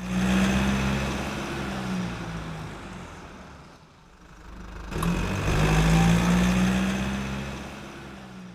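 A car engine running, heard in two swells that each start loud and fade away over about four seconds, with a sharp click where the second begins.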